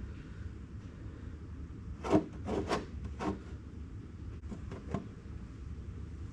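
A few short scrapes and knocks from hand work on a tractor axle during an oil drain: three or four in quick succession about two to three seconds in, then a few lighter taps near five seconds, over a steady low hum.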